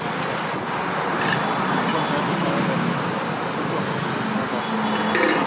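Steady roadside traffic noise, with a few faint light clinks.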